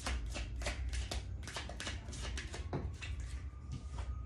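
Tarot cards being shuffled by hand: a quick, even run of papery taps, about five a second, that stops about three seconds in.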